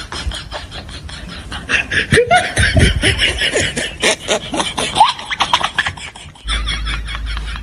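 Close-up eating noises of two people eating rice and egg curry by hand: rapid chewing, lip-smacking and wet mouth clicks, with a few short vocal sounds in the middle.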